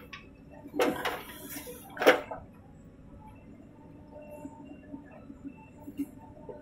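JCB 3DX backhoe loader at work: two loud metallic clanks about one and two seconds in as the bucket empties soil over the steel trolley, then a faint steady machine hum with light knocks while the arm swings back down to dig.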